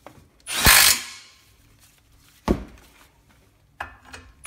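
Cordless power tool on a socket extension snugging down a 15 mm caliper bracket bolt: one loud half-second run about half a second in, then a short sharp knock about two seconds later and a few light clicks near the end.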